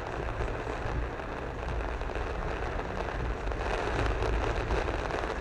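Heavy rain and road water heard from inside a car driving slowly through a flooded street: a steady hiss of rain and tyre spray over a low rumble from the car. It swells a little about four seconds in.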